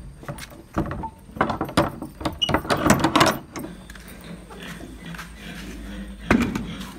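A quick run of clinks and knocks, like hard objects being handled, for about three seconds, then a faint steady hiss with one more knock near the end.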